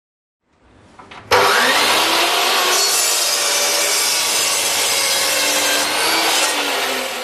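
Marcrist Extreme 355 chop saw, a 2300-watt saw with a 355 mm blade, cutting through a square block of solid wood. The loud cutting noise starts suddenly about a second in, with a tone that rises at the start, and runs on evenly.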